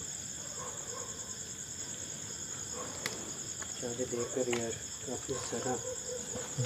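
Crickets trilling steadily in a continuous high chorus, with a sharp click about three seconds in and low murmured voices between about four and six seconds in.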